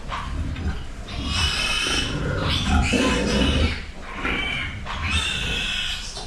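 Pigs squealing: about four high-pitched squeals in a row over a low steady hum.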